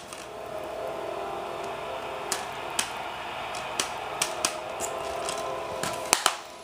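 Movie-trailer soundtrack played off a VHS tape through a CRT television's speaker: sharp clicks and snaps at uneven intervals, about eight in all, over a steady low tone.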